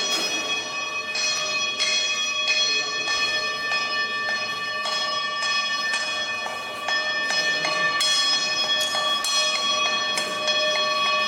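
Cowbells struck over and over, about twice a second at an uneven pace, their ringing tones overlapping and sustained between strikes.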